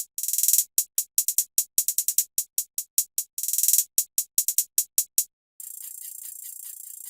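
Electronic trap drum-kit sounds: quick, bright ticking hits in fast rolls with a few longer hissy hits. About five and a half seconds in they change to a steady high hiss.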